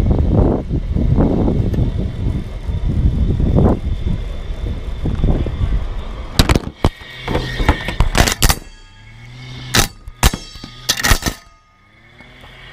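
Robotic lawn mower rolling over grass with a steady low rumble. About six seconds in, it turns into a burst of sharp, irregular clattering hits as the mower's cutting blades strike and hack at a GoPro camera trapped underneath.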